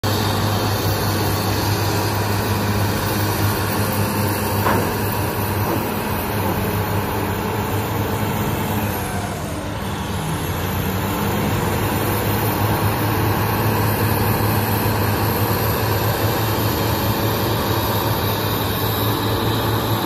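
Heavy diesel engines of a BEML crawler bulldozer and a BEML BE1000 hydraulic excavator working under load, a steady low drone. A single sharp knock comes about five seconds in, and the sound dips briefly about halfway through.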